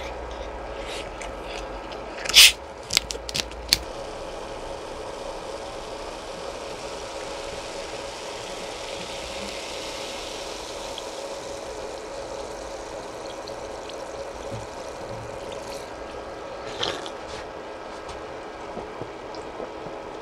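Eating fish cake soup: a sharp clack about two seconds in and three lighter clicks soon after, with faint wet eating sounds, over a steady hum.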